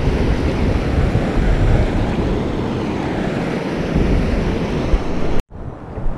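Steady rush of water pouring over a low-head dam spillway, with wind buffeting the microphone. It cuts off suddenly near the end and gives way to a quieter, steady rush of river current.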